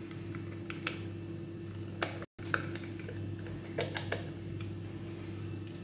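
Paper powder sachets handled and tapped over a plastic mixing bowl: scattered light clicks and rustles over a steady low hum. The sound drops out for a moment about two seconds in.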